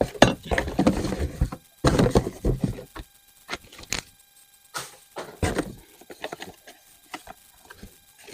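Hands rummaging through a box of rifle parts: two bursts of rustling and handling noise in the first three seconds, then scattered clicks and light knocks.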